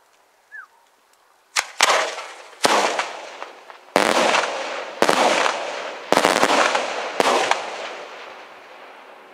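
Daytime aerial fireworks: about eight sharp bangs from shells bursting into clusters of small salutes, coming roughly a second apart from about a second and a half in, each trailing off in a long fading tail.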